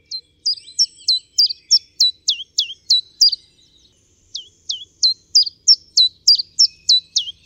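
A songbird calling: a rapid series of short, high whistled notes, each sliding sharply downward, about three a second, in two runs with a pause of about a second near the middle.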